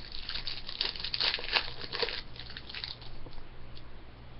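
Wrapper of a 2013-14 Upper Deck Series 1 hockey card pack crinkling and tearing as it is opened by hand, dying down a little over two seconds in to faint handling clicks.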